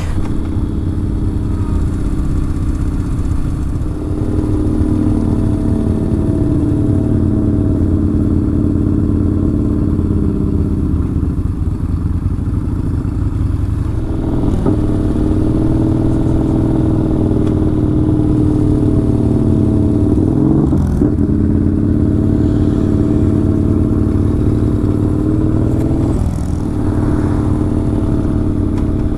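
Yamaha Bolt's air-cooled V-twin engine under way, its pitch rising and falling with speed and dropping off at gear changes several times.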